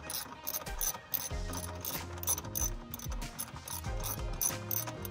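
Ratchet wrench clicking in a steady run, about three to four clicks a second, as a screw on the fuel filter mount is worked, with background music underneath.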